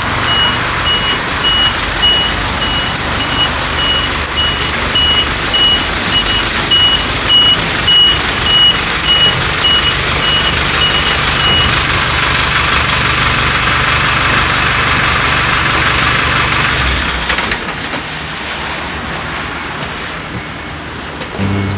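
Small box-bodied truck reversing, its reversing alarm beeping about twice a second over the running engine; the beeping stops about twelve seconds in and the engine sound drops away about seventeen seconds in.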